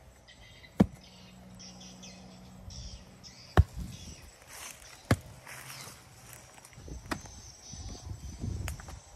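A hoe chopping into dry soil: about five sharp strikes a second or two apart, the loudest a few seconds in, with softer scraping of loose earth between.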